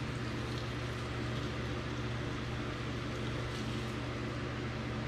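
Steady low hum of a range hood exhaust fan, with faint sizzling and an occasional small crackle from squid laid on a hot stovetop grill pan.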